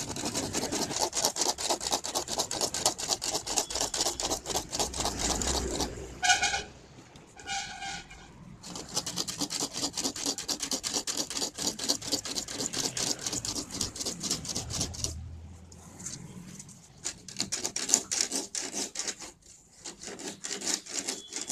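A hand tool rasping in fast, repeated strokes along the edge of a PVC door panel. Around six seconds in the strokes stop while a horn sounds twice briefly. The strokes then resume and grow softer near the end.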